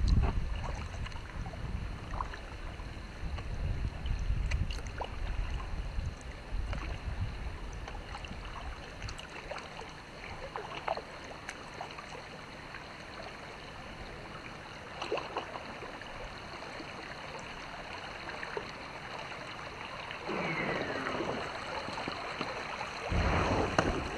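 Water lapping and dripping around a kayak as it moves along, with scattered small drips and knocks. Wind rumbles on the microphone over the first several seconds. Near the end a louder rustling rush sets in as the kayak pushes into tall reeds.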